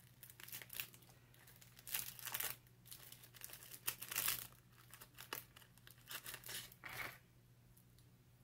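Small jewelry packaging crinkling and rustling in irregular bursts as a necklace is worked free of it, stopping about seven seconds in.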